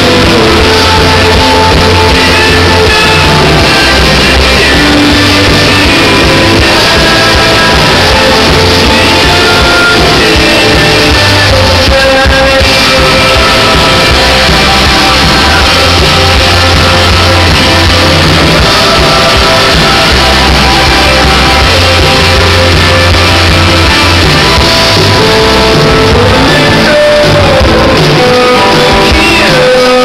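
Rock band playing live: electric guitars, bass and drums with a male lead vocal, loud and distorted.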